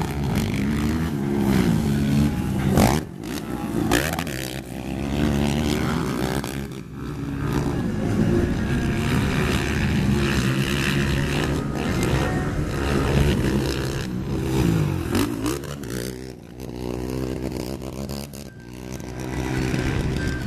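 Racing ATV (quad) engines revving up and down, their pitch rising and falling again and again as several quads run together.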